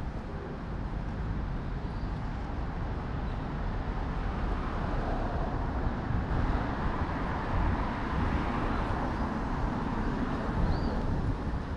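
City street traffic noise: vehicles running, growing louder over the second half as one comes closer.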